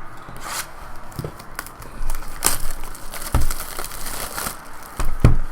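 Plastic wrapping of a trading-card hobby box being torn and crinkled as the box and its packs are opened, with two dull knocks, the louder one near the end.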